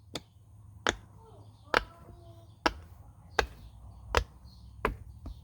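Pop it fidget toy's silicone bubbles being pressed one at a time, each giving a short sharp pop. About eight pops come at an unhurried, fairly even pace, a little under a second apart.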